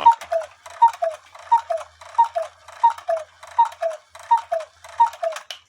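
Cuckoo clock calling the hour: eight two-note cuckoos, a higher note falling to a lower one, evenly spaced about 0.7 s apart, each with a small click from the works. It runs through all eight calls for 8 o'clock without sticking, now that the bent tab on the 8-point star wheel has been straightened.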